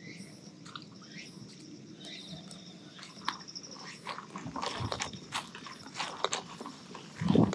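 Irregular crunching and rustling of footsteps through grass, growing busier after a few seconds, over faint steady high-pitched tones, with a louder low thud just before the end.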